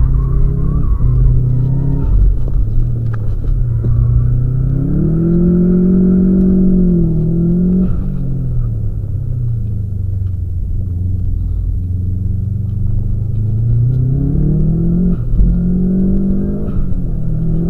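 Subaru's flat-four engine driven hard round a track: the revs climb and fall several times as it accelerates, eases off and shifts, with a quick drop about fifteen seconds in, over a steady low rumble.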